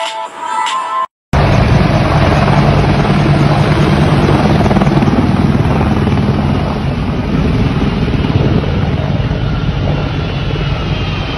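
A short bit of music ends abruptly about a second in. Then the engines of a military transport jet on the airfield give a loud, continuous roar, with faint whines sliding in pitch near the end.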